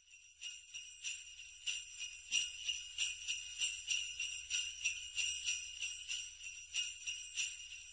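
Sleigh bells jingling, shaken in a steady rhythm of about two shakes a second.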